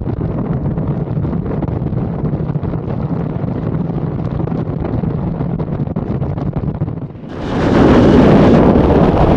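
Wind buffeting a phone's microphone on a moving motorcycle at highway speed, with a steady engine drone underneath. About seven seconds in it drops briefly and gives way to a louder, hissier rush of noise.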